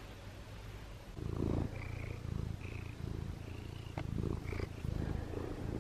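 Domestic cat purring close to the microphone, a low rhythmic rumble that starts about a second in.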